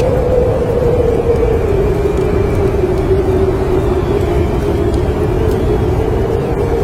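Winter wind howling: a steady low rumble with one whistling tone that slowly sinks and rises in pitch. Faint fireplace crackles are scattered through it.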